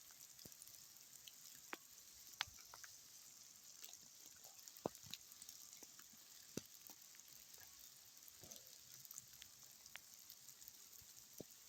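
Faint ice-storm precipitation pattering on ice-glazed branches and ground: a steady fine hiss with scattered sharp ticks.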